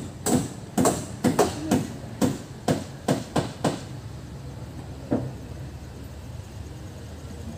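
A quick, uneven series of about ten hammer blows, two to three a second, stopping about four seconds in, then one last blow about a second later.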